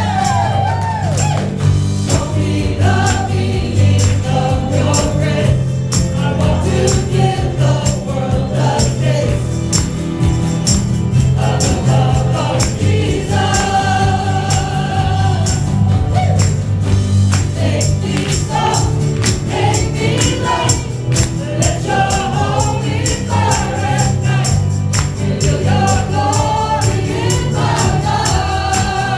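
A small group of singers performing a gospel song together over instrumental backing, with a strong sustained bass line and a steady percussion beat.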